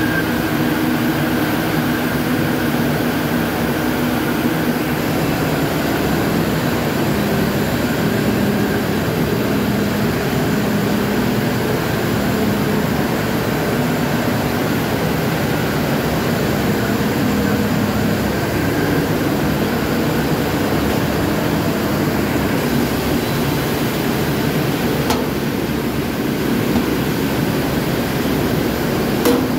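Zinser ring spinning frame running at full speed: a steady, loud machine drone of its spindles and drive motors, with a single sharp click just before the end.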